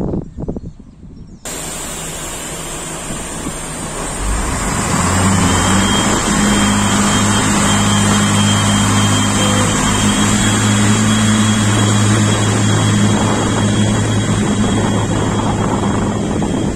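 Renfe class 592 diesel multiple unit's diesel engines running loudly as the train pulls out, a steady low drone with a faint high whine above it. The drone rises about four seconds in and then holds. Wind buffets the microphone for about the first second.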